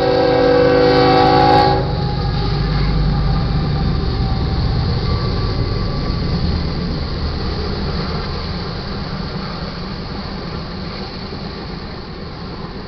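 A freight locomotive's air horn sounds a loud chord that cuts off about two seconds in. It is followed by the steady rumble of a freight train passing close by, mostly tank cars, with faint wheel clatter that slowly fades.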